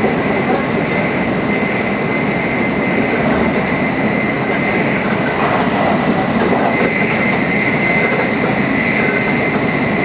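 Tokaido Shinkansen Nozomi train running at high speed: a steady, loud rushing rumble with a thin high whine running through it.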